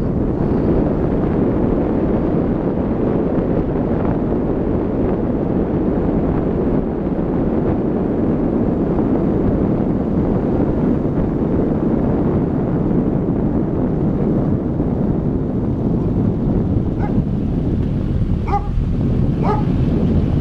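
A car driving along a narrow lane, heard from on board as a steady noise of engine, tyres and wind. Near the end a dog barks several times.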